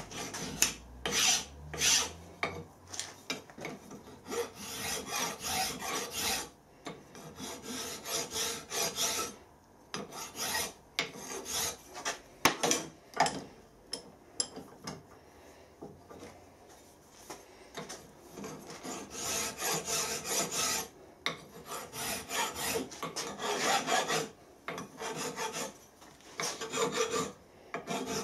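Hand files rasping across a small metal part clamped in a bench vise, taking the corners off. The strokes come in runs of quick scrapes with short pauses between, quieter for a few seconds in the middle.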